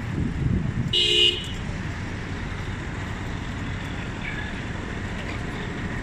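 A single short vehicle horn toot about a second in, over steady street traffic rumble.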